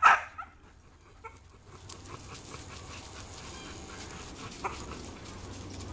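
A dog barks once, sharply, right at the start. Then comes the faint crunch of footsteps on a gravel path.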